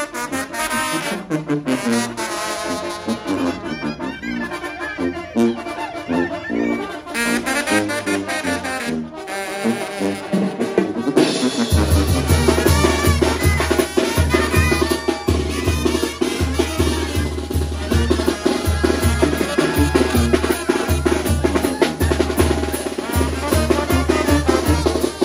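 Live Mexican banda playing in the open air: trumpets and trombones carry the melody, and about halfway through the tambora bass drum and tuba come in with a steady, heavy beat.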